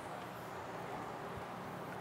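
Steady background hiss of room tone, with a faint low thump about one and a half seconds in.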